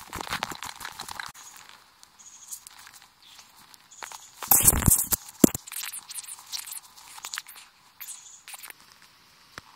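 Footsteps crunching through thin, patchy snow over dry grass and leaves, with a louder burst of noise about halfway through.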